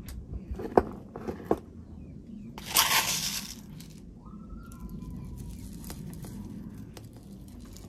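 Small decorative stones clicking and rattling off a plastic scoop onto a potted succulent's soil. There are a few sharp clicks, then a louder rush of gravel about three seconds in.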